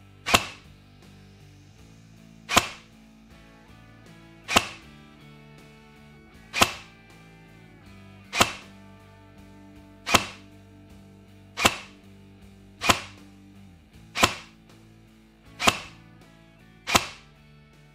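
Ares/Begadi OMR SOC SLR electric airsoft sniper rifle firing single shots: eleven sharp reports, about two seconds apart at first and coming a little quicker toward the end, with quiet music under them.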